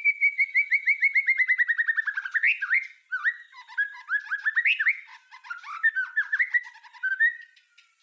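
White-rumped shama (murai batu) song: a rapid-fire run of sharp repeated notes, about ten a second, sliding slowly lower for nearly three seconds, then varied whistled phrases that rise and fall, with clicks between them. These fast 'tembakan' (shot) runs are what a masteran recording is meant to teach caged birds.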